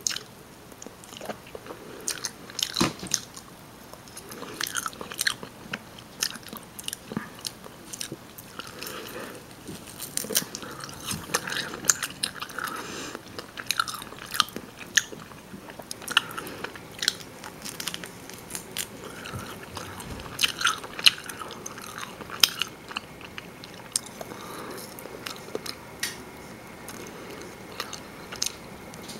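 Close-miked chewing and biting of rotisserie chicken: a stream of irregular wet mouth clicks, smacks and crunches.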